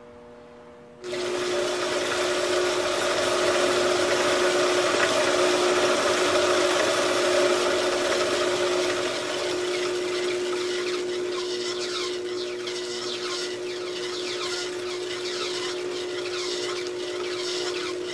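Variable-speed treadmill motor driving a 4x6 metal-cutting band saw through its belt and pulleys, running free with no cut. It comes up abruptly about a second in, to a steady motor whine over the rush of belt and blade.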